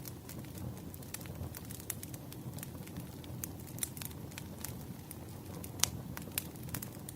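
Wood campfire burning, with a steady low rush of flame under irregular sharp crackles and pops of burning wood, the loudest pop about six seconds in.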